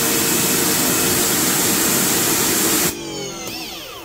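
EGO 56-volt cordless pressure washer spraying a steady hiss of water onto concrete through its 25-degree nozzle on the high setting. About three seconds in the trigger is released: the spray cuts off and the motor and pump whine down with falling pitch.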